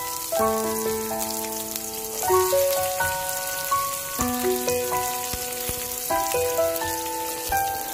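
Red onion and garlic sizzling in oil in a pot, a steady crackling hiss. Background music with sustained chords that change about every two seconds plays over it.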